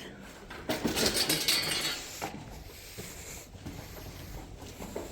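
A burst of light metallic clattering and scraping about a second in, lasting a second or so, then fainter scattered knocks.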